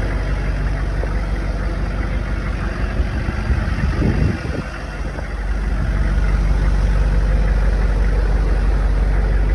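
M1114 HMMWV's turbo-diesel V8 idling steadily with its air conditioner running. The sound drops for a moment about four seconds in, then returns to the same steady drone.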